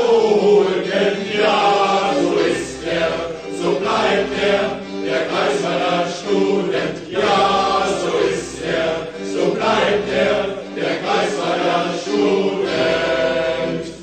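Group of voices singing a German student drinking song in chorus, the sung lines running on without a break.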